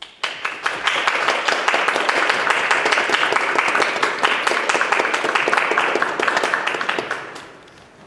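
Audience applauding: many hands clapping, breaking out at once and dying away near the end.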